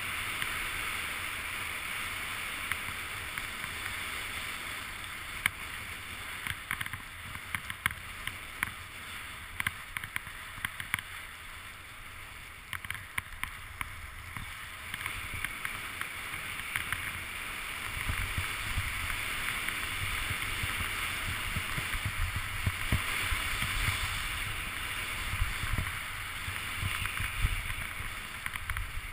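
Skis sliding over snow: a steady hiss with scattered clicks and knocks. Wind rumbles on the microphone, stronger from about two-thirds of the way in.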